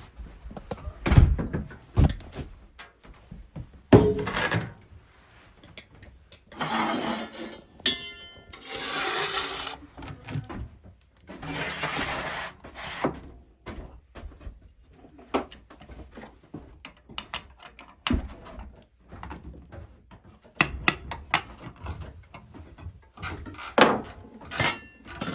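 Ashes and coals being cleared out of a wood stove: scattered knocks and thuds of a metal shovel, with three longer scraping rushes in the first half.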